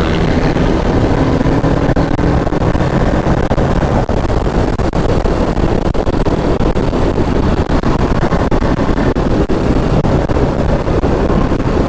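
Kawasaki Ninja 650's parallel-twin engine running steadily at highway speed, about 112 km/h in top gear, under a loud, even rush of wind and road noise.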